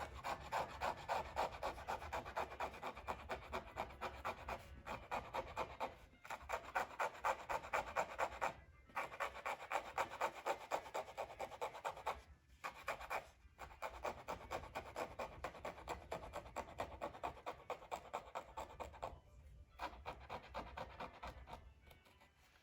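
Quick, rhythmic scraping strokes on Torah parchment, about three a second, in runs of a few seconds with short pauses between them: a watermark and surface dirt being scraped off the skin.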